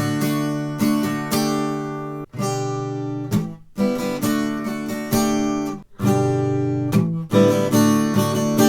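Acoustic guitar strummed in the gallop pattern: triplets of down-up-down strokes, the third stroke accented, with short breaks where the strings are muted or the chord is changed.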